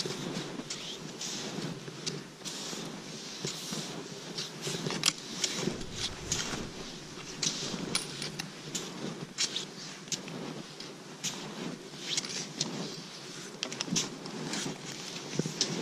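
Cross-country skis shuffling through fresh snow, with irregular crunches and clicks from the skis and from ski poles planted in the snow.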